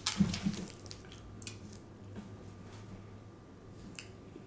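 Close-miked mouth sounds of a man chewing food: a few wet smacks in the first half-second, then scattered soft clicks over a low steady hum.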